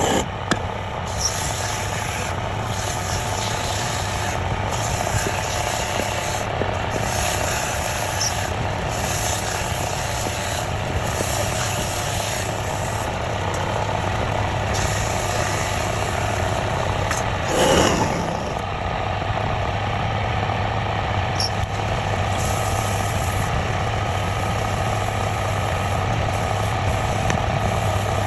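Wood lathe running steadily with a low motor hum, a turning tool scraping and cutting on the spinning workpiece. A short, louder scrape comes about 18 seconds in.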